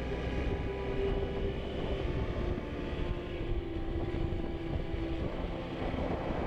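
Motorcycle riding at a steady speed: the engine runs evenly with a held hum that dips slightly in pitch partway through, over a steady rush of road and wind noise.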